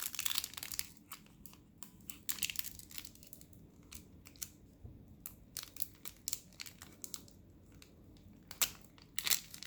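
Foil wrapper of a Pokémon trading card booster pack crinkling and tearing in the hands as it is worked open: a scatter of sharp crackles and small rips, busier near the end.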